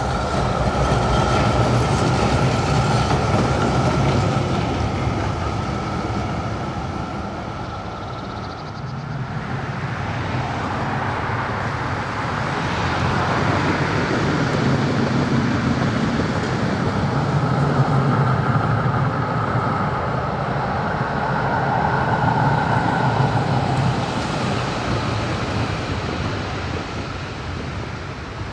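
A Duewag GT10NC-DU articulated tram passes at close range: a steady running rumble with a high whine, fading after about eight seconds. Vehicle noise then swells again as a car passes on the road, and later another passing vehicle with a similar whine fades out near the end.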